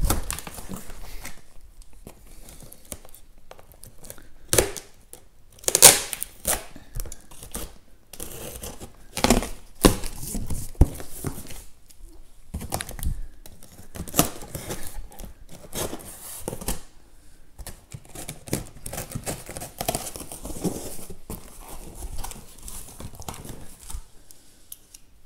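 Packing tape being slit and ripped off a cardboard box with a utility knife, and the cardboard flaps scraping and rustling as they are pulled open. It is a series of irregular sharp ripping and scraping strokes, the loudest about six seconds in.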